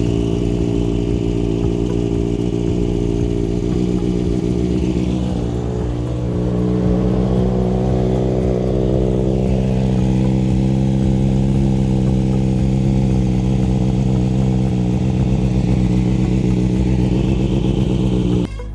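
2024 Kawasaki ZX-6R's 636 cc inline-four engine idling steadily, a little louder from about six seconds in, then cutting off abruptly near the end. It is being warmed up so the oil runs out easily at its first oil change.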